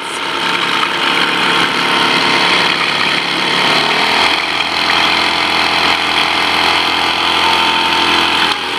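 A 1966 British Seagull Series Forty Plus outboard, a single-cylinder two-stroke with Villiers ignition, running steadily and loudly, its propeller churning the water. About four seconds in, the sound changes, with a deeper note added underneath.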